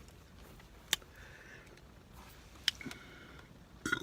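A woman hiccupping: three short, sharp hiccups about a second and a half apart, the last one a quick double.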